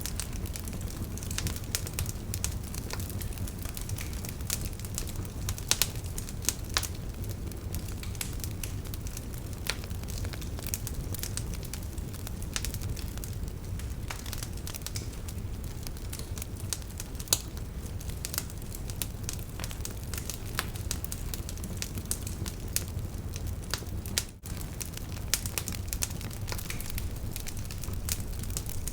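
Campfire crackling, with frequent sharp pops and snaps over a steady low rumble of the flames.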